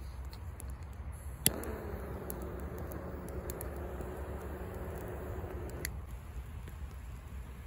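A lighter clicks on about a second and a half in, and its flame hisses steadily with a faint whine for about four seconds before it is shut off with a click, lighting a pile of charcoal.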